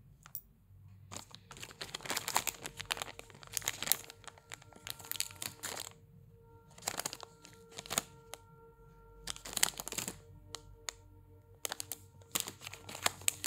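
Clear plastic jewellery packets crinkling in repeated spells of crackling as they are handled, over faint background music with held notes.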